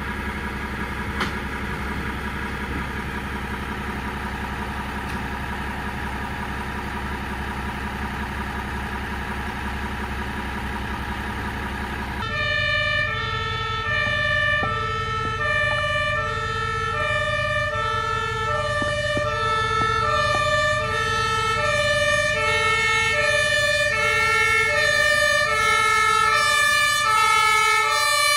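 A fire truck's diesel engine runs steadily. About twelve seconds in it gives way to a German two-tone fire-service siren (Martinshorn) on the turntable ladder truck, sounding a high and a low note in turn about once a second and growing louder as the truck approaches on an emergency run.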